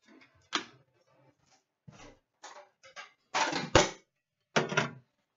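A metal hockey-card tin being opened and emptied onto a glass counter: a run of short clatters and rustles from the tin and the card packs. The loudest stretch is about three and a half seconds in, with a sharp knock near four seconds.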